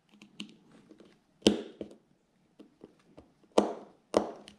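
Light clicks and three louder sharp knocks of a screwdriver and small reel parts handled on a hard work surface while baitcasting reel screws are put in and tightened.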